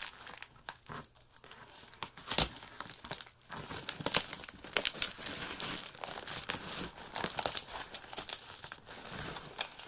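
Plastic packing tape crinkling and tearing as it is pulled and cut off a heavily taped cardboard box, with scissors working through the tape and cardboard. Scattered crackles and one sharp snap about two and a half seconds in, then a dense run of crackling from about three and a half seconds on.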